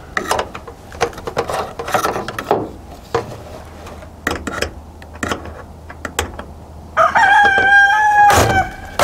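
Scattered light clicks and knocks as the solar panel's mount is worked on the metal coop roof, then a rooster crows once, loud and long, about seven seconds in.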